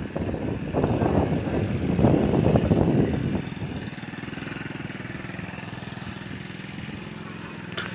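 A loud, rough rumbling noise for about three seconds, then a nearby engine idling steadily, with a sharp click near the end.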